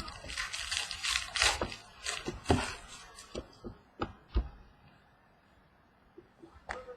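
Trading cards being handled and flipped through by hand: rustling and sharp little snaps of card stock, then a quiet pause of about two seconds before another click near the end.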